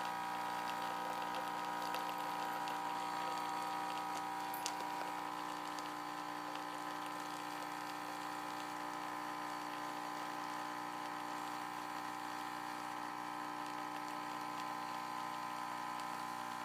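Nescafé Dolce Gusto Piccolo capsule coffee machine brewing, its pump running with a steady hum as hot water is forced through the capsule into the cup. There is a faint click about four and a half seconds in.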